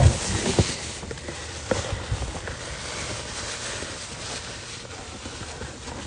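Handling noise from a cardboard box and a phone being moved about: a few short knocks and rustles in the first two seconds, then a steady faint rustle with outdoor background hiss.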